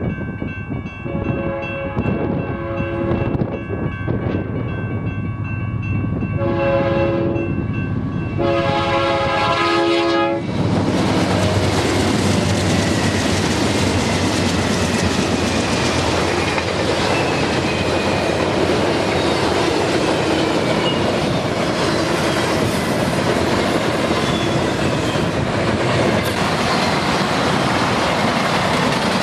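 A freight locomotive's multi-chime air horn sounds several blasts as the train nears, the last one the longest. About ten seconds in, the lead locomotive reaches the microphone and the horn stops. The train then rolls past with a loud, steady rush of wheels on rail and some clickety-clack.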